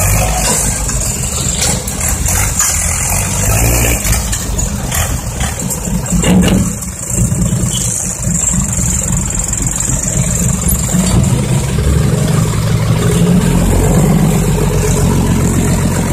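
Six-wheel dump truck's diesel engine running through its large open exhaust pipes, revving up and down, with a steadier, stronger run in the second half as the tipper bed is raised.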